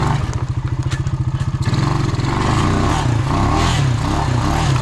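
Honda Rancher 350 ATV's single-cylinder four-stroke engine running as it is ridden, steady for the first couple of seconds, then revving up and down as the throttle changes.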